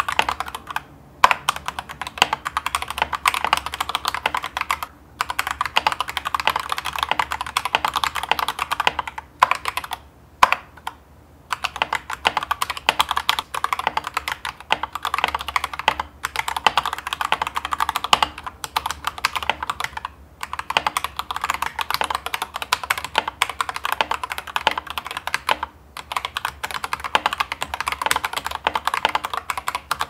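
Typing on an Akko mechanical keyboard: fast, continuous key clicks and clacks, broken by short pauses every few seconds and a longer pause about ten seconds in.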